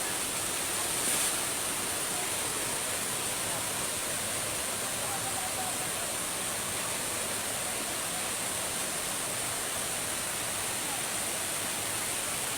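Steady rush of flowing water, with a constant high-pitched hiss above it.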